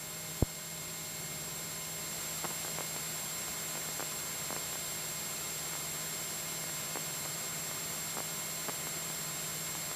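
Steady in-flight cabin noise of a Cessna 172SP, its Lycoming four-cylinder engine and airflow heard as an even hiss with a faint low hum. A single click about half a second in, and a few faint ticks.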